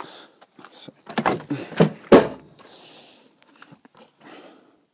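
Old Chevy 2500 pickup's door being opened: a quick run of latch clicks and knocks, the loudest a heavy thunk a little over two seconds in, followed by fainter handling noise.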